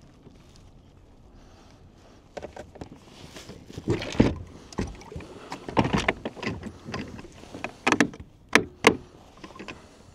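Pedal drive of an Old Town Sportsman 120 PDL being handled and set into the plastic kayak hull, making irregular hollow knocks and clunks after a couple of quiet seconds. Two sharp knocks close together near the end are the loudest.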